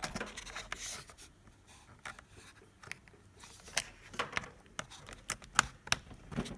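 Handling noise as a mini HDMI cable is plugged into the side port of a Nikon D3300 camera: scattered light clicks and plastic scrapes, the sharpest clicks in the second half.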